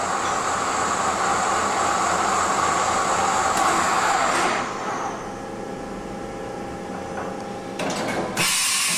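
1983 Matsuura MC-760-V2 CNC vertical machining center running with its spindle at about 1,000 RPM during an X-axis table traverse. The louder running noise drops about halfway through, leaving a quieter steady whine, and a loud hiss starts near the end.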